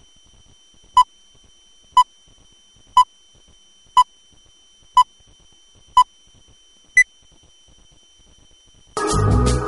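Film countdown leader beeps: seven short tone beeps one second apart, the last one higher in pitch, marking the countdown numbers. Music starts near the end.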